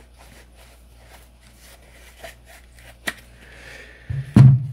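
A microfiber cloth rubbing softly over a Glock 19X pistol during its final wipe-down, with small handling clicks and one sharp click about three seconds in. Near the end comes a loud thump as the pistol is set down on the mat.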